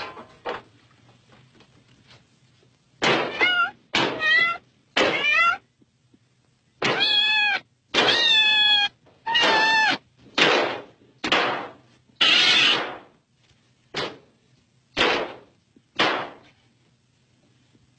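Cat meowing and yowling, about a dozen calls in quick succession. Some are long with a bending pitch, others short and harsh. A faint low hum runs underneath.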